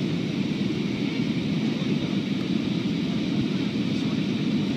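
Steady cabin noise inside an Airbus A330-300 airliner in flight on approach: the low, even rumble of the jet engines and airflow over the fuselage, with a fainter hiss above it.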